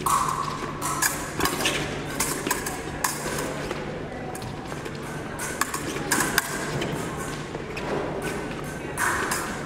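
Fencers' footwork on the piste during an épée bout: a scatter of sharp stamps and taps, over a murmur of voices in a large, echoing hall.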